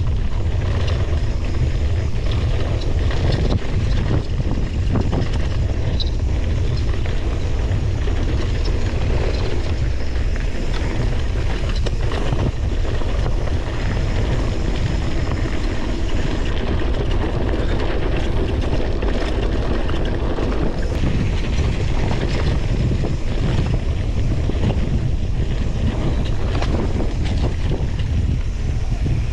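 Mountain bike riding fast down a dirt trail: wind rushing over the microphone as a steady low rumble, with tyre noise and frequent knocks and rattles of the bike over rough ground.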